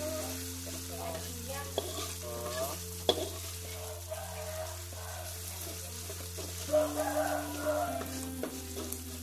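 Metal spatula stirring and scraping food around an aluminium wok while it sizzles in hot oil, with a few sharp clinks of the spatula against the pan.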